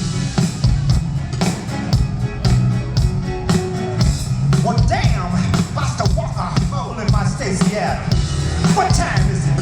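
Live funk band playing: a steady bass and drum groove, with voices coming in and out over it a few times.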